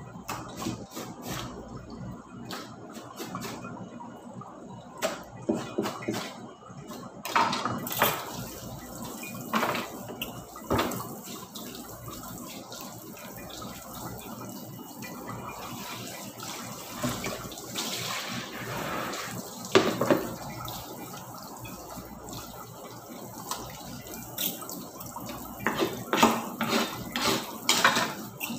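Kitchen tap running into a sink while a cloth is scrubbed and rinsed under it by hand, with irregular splashes and knocks. The rush of water comes in about a quarter of the way through.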